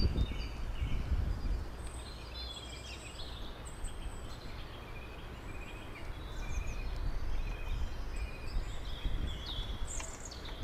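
Outdoor ambience of small birds chirping and trilling over a steady low rumble of wind on the microphone. The rumble is strongest in the first second.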